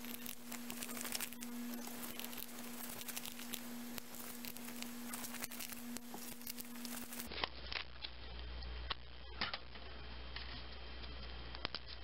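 Faint small clicks and rustling from gloved hands working on an opened smartphone with a jeweler's Phillips screwdriver, over a steady electrical hum. The background hum changes abruptly about seven seconds in.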